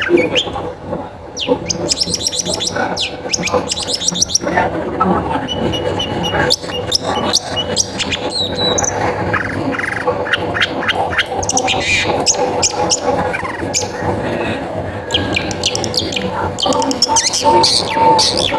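Long-tailed shrike (cendet) in full song, a fast chattering run of short, sharp notes. It is a bird in top singing form (gacor), the kind of song played as a lure to set other cendet singing.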